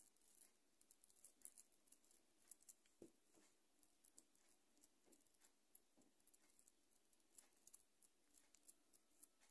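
Near silence, with faint, irregular soft ticks and pats of wet hands closing and smoothing bulgur dough around a minced-meat filling to shape an içli köfte.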